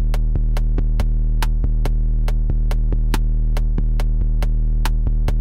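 Electronic beat played back in the Reason music software, built from its factory sounds: a long, deep held bass note under a steady sharp tick about five times a second.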